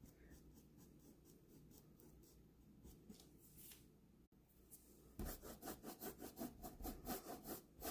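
Paintbrush scrubbing paint onto a canvas in short repeated strokes, faint at first and louder from about five seconds in, at roughly four strokes a second.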